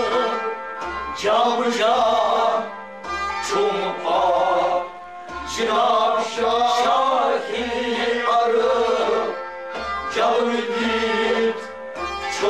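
Kashmiri Sufi-style song: a male voice sings over a steady harmonium, with a tumbaknari goblet drum striking a regular beat and sarangi and rabab strings alongside.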